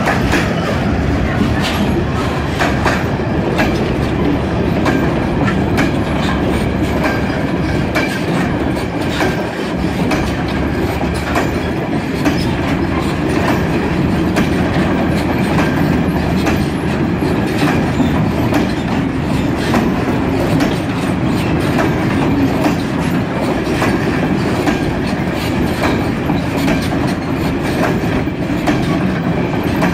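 Freight train of covered bogie box wagons rolling slowly past close by: a steady rumble of wheels and running gear, with repeated clicks and clacks as the wheels cross rail joints.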